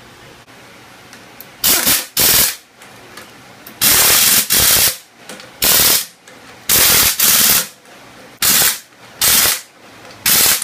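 Impact wrench hammering in about ten short bursts, mostly in pairs, starting about two seconds in, as it runs down and tightens the axle shaft flange bolts on a 14-bolt full-floating rear hub.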